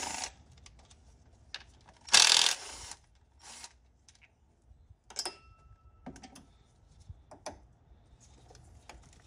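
A cordless power driver runs once for about half a second, backing out a 10 mm bolt on a Honda D17 engine, followed by scattered clicks and light metal clinks of bolts and parts being handled, one clink ringing briefly about five seconds in.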